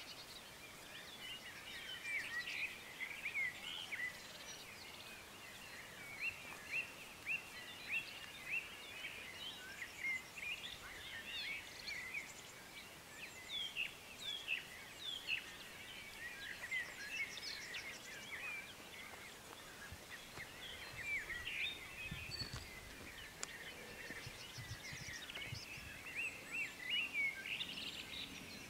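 Birds singing in the background: many short, irregular chirps and trills, over a faint steady outdoor hum.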